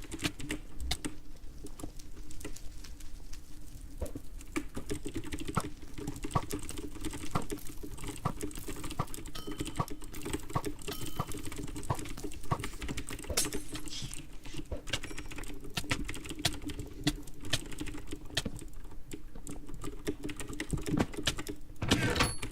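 Computer keyboard typing: fast, irregular key clicks that keep going without a break, over a steady low hum.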